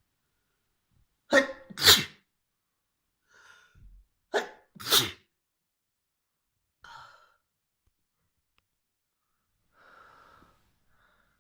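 A person sneezing: a loud pair of sneezes about a second in and another loud pair about four seconds in, with quieter breaths between and after.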